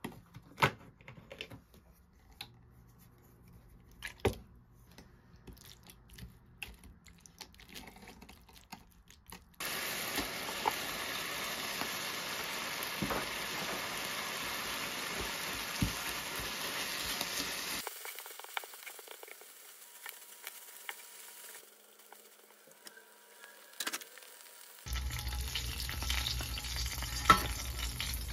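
Clicks and knocks of a pan and utensils, then about ten seconds in a sudden steady sizzling as rice and red sauce fry in a pan, stirred with a silicone spatula. The sizzling drops away, then comes back near the end.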